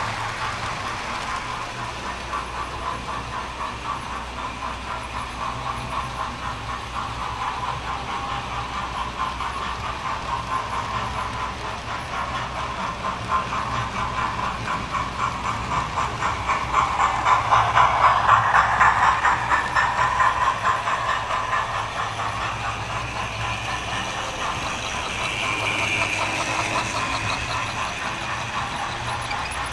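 Model trains running on the layout's track: a steady rattle of rapid, even clicks from the wheels on the rails. It grows louder as a train passes close a little past halfway, then eases back.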